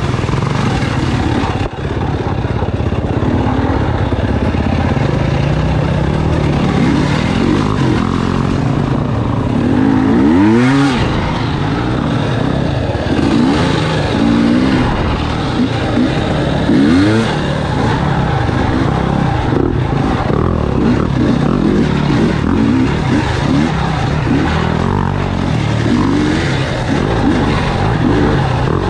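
Enduro dirt bike engines running and revving up and down, several clear rises and falls in pitch through the middle, with water splashing as the bikes cross a creek near the start.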